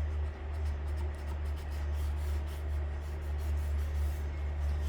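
Sandpaper rubbed by hand over the primed sheet-metal hood of an outboard motor, in irregular scratchy strokes, with a steady low hum underneath.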